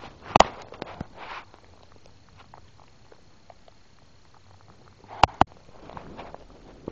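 Close-up sounds of a stuffed belly recorded on a phone: a sharp knock about half a second in and two more close together around five seconds, with faint small pops and soft rubbing between.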